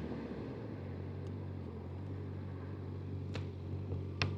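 Honda CB1000F's inline-four engine running at a steady pitch, heard muffled from inside a full-face helmet with the visor down, with two faint clicks near the end.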